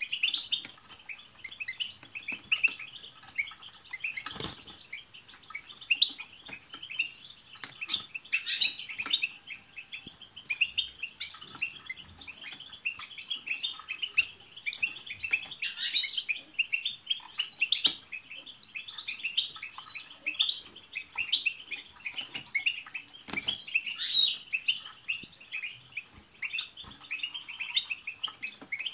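Several European goldfinches singing together: a dense, continuous twittering of quick chirps and trills, with a short run of about six high repeated notes about twelve seconds in.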